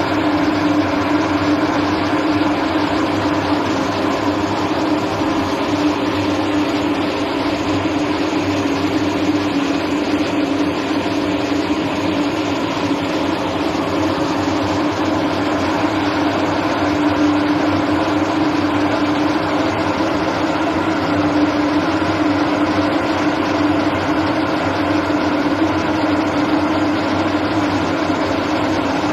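KLTM60 mist cannon running, its fan blowing a steady jet of water mist: an even rushing noise with a constant hum underneath.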